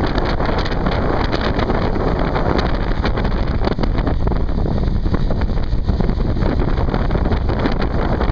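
Steady wind rush on the microphone aboard a boat under way, over the boat's engine noise.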